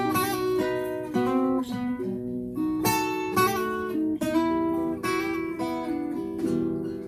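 Acoustic guitars playing an instrumental break between sung verses: a plucked melody of quick single notes over chord accompaniment, getting quieter near the end.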